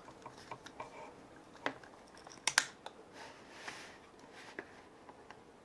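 Scattered light clicks and taps of plastic LED bulbs and their lamp sockets being handled, with a sharper pair of clicks about two and a half seconds in.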